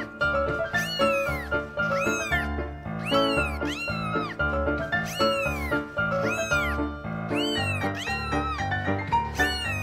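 Cat meows repeated in a steady rhythm over background music with a bass line, like a song built from meow samples. Each meow rises and then falls in pitch.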